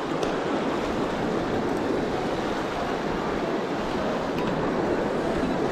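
Truckee River water rushing steadily, with a couple of faint ticks.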